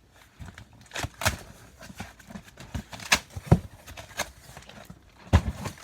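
A sealed cardboard box being opened by hand: irregular rustling broken by sharp taps and knocks, the loudest about three and a half seconds in and again near the end.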